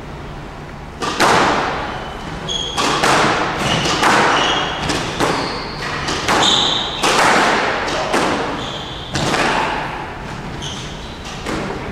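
Squash rally: the ball smacked by rackets and off the court walls, sharp echoing hits about every one to two seconds, with short high squeaks of shoes on the court floor between them.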